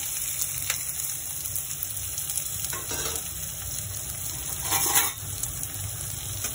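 Chopped onions sizzling in hot oil in an aluminium kadai: a steady frying hiss, with a few faint knocks about a second, three seconds and five seconds in.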